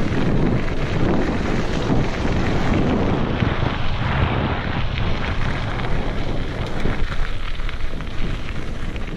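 Wind buffeting the microphone in a constant low rumble during a fast descent, with mountain-bike tyres crunching and rattling over a loose gravel trail.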